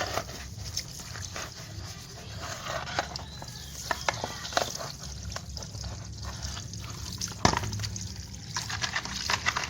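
Brush scrubbing a wet Vespa PX engine block, with water dripping and trickling and scattered small clicks; a sharp knock about seven and a half seconds in.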